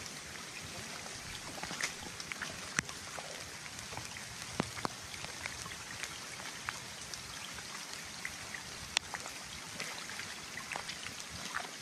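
Pattering and dripping water over a steady hiss, with many small sharp ticks scattered throughout.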